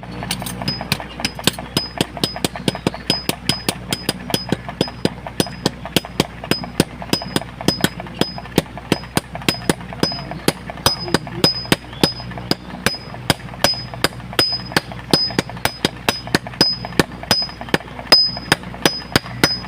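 Blacksmith's hammer striking hot metal on an anvil in a steady rhythm of about three blows a second, most blows with a high metallic ring. A steady low hum runs underneath.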